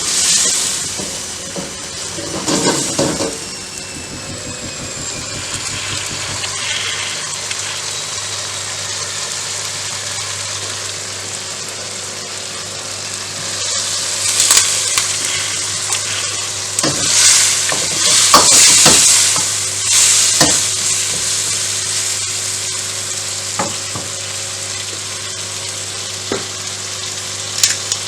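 Food frying and sizzling in a hot pan while it is stirred, with a utensil clicking and scraping against the pan. The sizzle surges louder several times in the second half.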